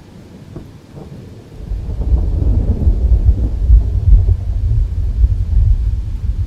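Thunder rumbling in a night-time rainstorm, a deep rolling rumble that swells about a second and a half in and keeps rolling, over steady rain.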